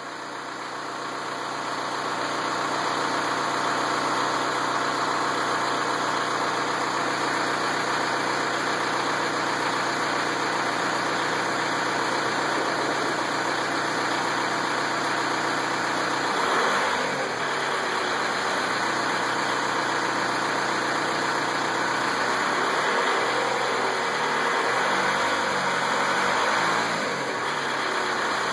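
Volkswagen Beetle TDI turbo-diesel engine idling with a ticking sound of unknown cause, most apparent near the end. The engine note shifts about two-thirds of the way through.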